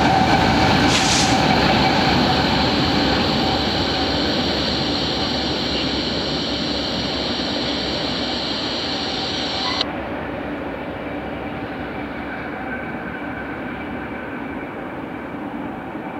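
BNSF GE ES44C4 diesel locomotives passing with a double-stack container train, engines and steel wheels on rail rumbling along with steady whining tones, the sound slowly fading as the train moves away. The sound drops abruptly about ten seconds in, leaving a quieter, distant train rumble.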